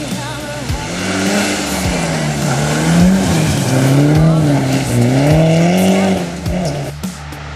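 Mitsubishi Lancer Evolution IX rally car's turbocharged four-cylinder engine revving up and down several times as it drives through a snowy bend, loudest from about a second in until it drops away about six seconds in. Background music with a steady beat plays underneath.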